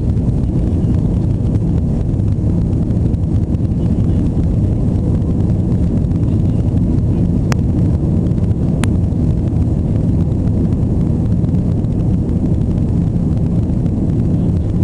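Jet airliner's engines and wheels heard from inside the passenger cabin during the takeoff roll: a loud, steady, deep rumble. Two brief clicks come about halfway through.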